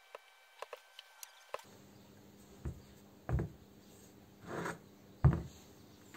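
Workshop handling sounds: a few light clicks, then several separate knocks and a brief scrape, the loudest knock near the end, as of tools and parts being handled on a bench.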